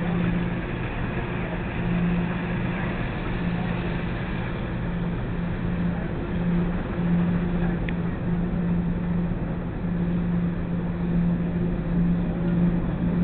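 Laundromat machinery running: a steady hum and rumble from commercial washers and tumble dryers.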